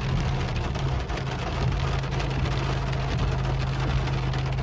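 Rain mixed with small hail hitting the car's roof and windshield, a dense run of fine ticks heard from inside the cabin, over a steady low hum from the car.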